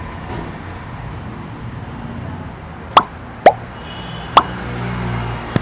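Mouth sounds of a man eating a chicken leg piece of biryani close to a lapel mic: three sharp, wet lip smacks, about three seconds in, half a second later, and again about a second after that, over a low steady hum.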